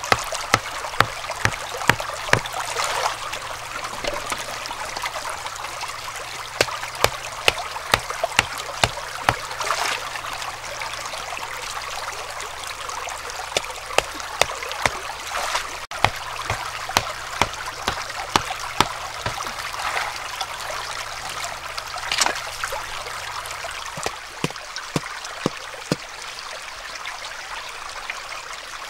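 A hand-held rock hammering wooden stakes down into a streambed: sharp knocks about two a second, in runs with short pauses between, over the steady rush of a shallow stream.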